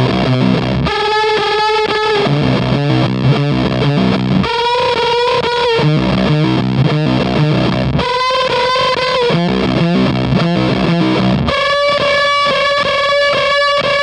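Electric guitar played through a Dreadbox Disorder fuzz pedal, heavily distorted. Low chugging riff phrases alternate every couple of seconds with higher, rapidly picked phrases over a held high pitch.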